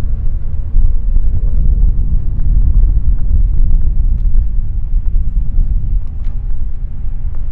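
AgustaWestland AW139 twin-turbine helicopter running, heard as a loud, steady low rumble with wind buffeting the microphone.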